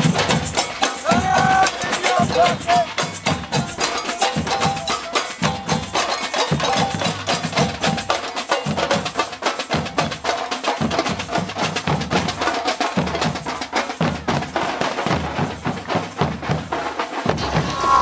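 Marching drum band playing a fast, driving rhythm on many drums, with sharp stick strikes over repeated deep bass-drum beats.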